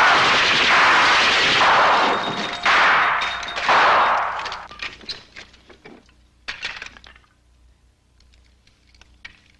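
Machine-gun fire in several long bursts, with things shattering under the hits. The firing stops about four and a half seconds in, leaving scattered clatter and tinkling of falling debris that dies away.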